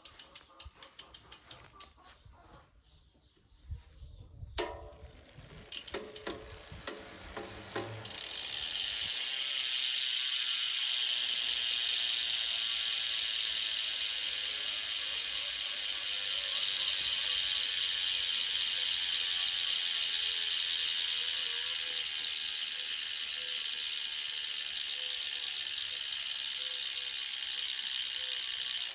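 Rear freehub ratchet of a Merida Silex 300 bicycle. First come separate clicks, then from about eight seconds in a loud continuous buzz as the rear wheel freewheels, its pitch slowly falling as the wheel slows.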